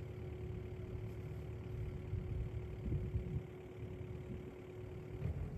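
Kubota KX080-4 excavator's diesel engine running steadily under work, with a steady tone over the rumble and a few louder low swells about three seconds in.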